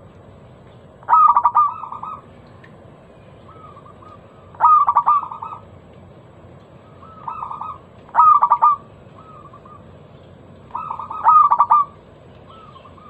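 Zebra dove (perkutut) singing: five phrases of rapid, quavering coos about three seconds apart, each lasting about a second. The one just past halfway is softer than the rest.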